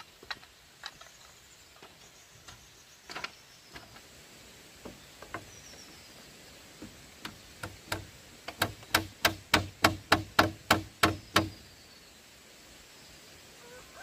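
Scattered light knocks and taps on bamboo, then past the middle a quick run of about ten evenly spaced strikes, roughly three a second, as bamboo is struck with a hand tool during construction.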